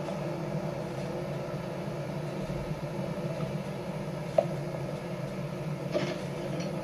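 Steady low rumble and hum of a vehicle, with a single sharp click about four and a half seconds in.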